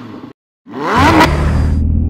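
Intro sound effects: a short hit of a car engine revving with a rising whoosh comes in just under a second in. It settles into a steady low engine rumble.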